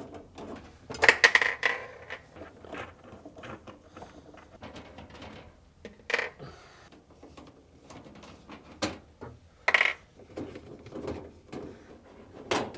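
Metal screws and a 1/4-inch nut driver clinking and clattering as the screws are removed from a refrigerator freezer's evaporator cover: scattered sharp clicks with quieter handling noise between them, the loudest cluster about a second in.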